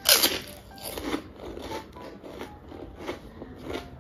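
A loud crunching bite into a crispy yellow puffed fried chip, followed by several crunches of chewing.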